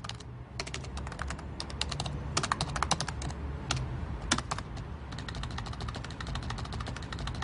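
Typing on a laptop keyboard: quick runs of key clicks broken by short pauses, over a low steady hum.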